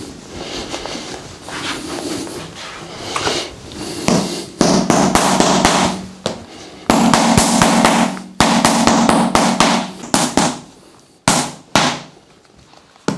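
A small mallet taps rapidly on a red massage tool pressed into the hip, in quick runs of strikes with a low ringing under them, then a few single taps near the end. The first few seconds are soft rubbing before the tapping starts.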